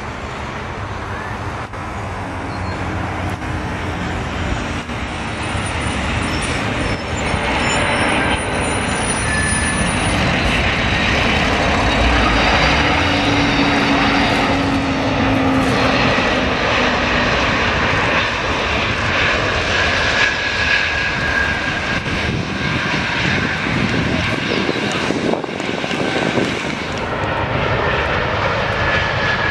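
Antonov An-225 Mriya's six D-18T turbofan engines on landing approach: a jet rumble that grows louder over the first ten seconds as the aircraft comes in low, then stays loud and steady as it passes and reaches the runway.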